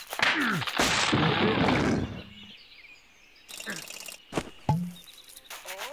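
Cartoon sound effects for a falling bear: a falling glide, then a loud crashing rustle as he plunges into foliage. A lull with faint bird chirps follows, then a sharp knock and short grunts near the end.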